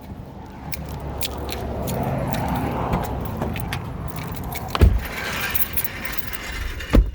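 Car running, with steady low engine and road noise, light jingling and rattling like keys, and two loud thumps, one about five seconds in and one near the end.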